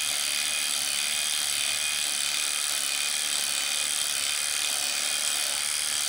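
Cordless drill running steadily at speed, driving an X-Trig preload adjuster collar along the threaded body of a motorcycle rear shock to change the spring preload.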